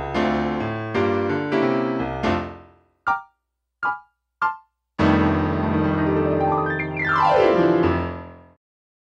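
Piano-like keyboard music: chords struck in a steady rhythm that die away about three seconds in, three short single high notes, then a big held chord about five seconds in with a run sliding down in pitch before it stops.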